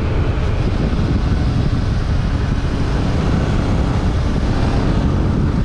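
Motorcycle on the move: steady wind rush over the microphone, with the Yamaha Ténéré 700's engine and road noise underneath.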